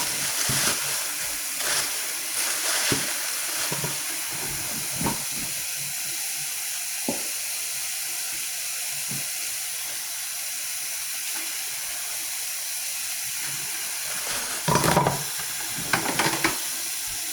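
Kitchen tap running steadily into the sink during dishwashing, with dishes knocking now and then and a few louder clatters near the end.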